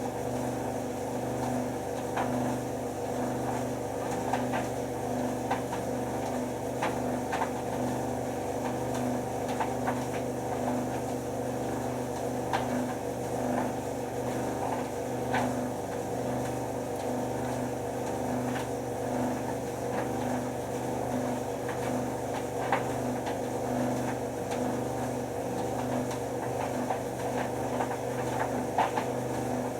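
White Knight C44A7W vented tumble dryer running on high heat, its motor and drum giving a steady hum with a faint regular pulse. Irregular light knocks come from the towels tumbling in the drum.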